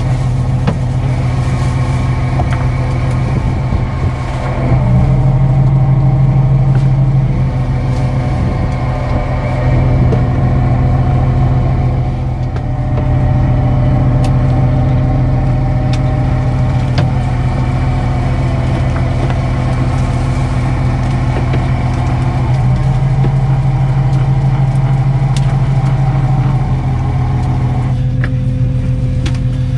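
Fishing boat's engine running steadily with a loud low hum that swells and eases a few times, with a few light clicks over it.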